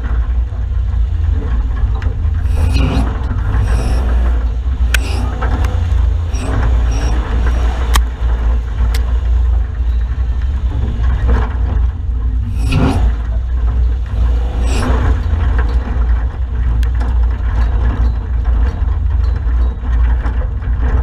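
Off-road 4WD driving a rough bush track, its engine and the wind on an outside-mounted camera microphone making a heavy steady rumble. Scattered sharp knocks and rattles come from the vehicle jolting over the bumps.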